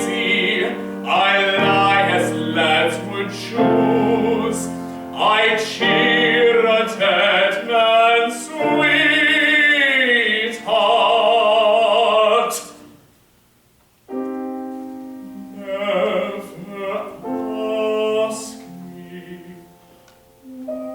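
A classical singer sings an art song with vibrato over piano accompaniment and holds a final long note that ends about 12 seconds in. After a brief near-silent pause, the piano plays soft chords alone.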